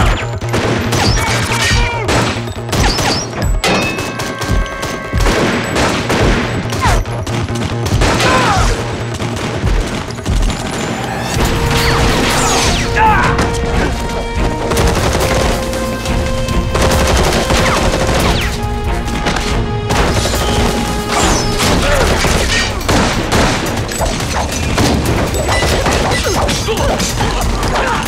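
Action-scene soundtrack: repeated gunfire and hits mixed with a dramatic music score, with a low drone coming in about eleven seconds in.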